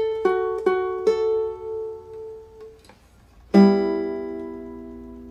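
Short plucked-string outro tune: a few picked notes ring out and fade, then about three and a half seconds in a single strummed chord rings and slowly dies away.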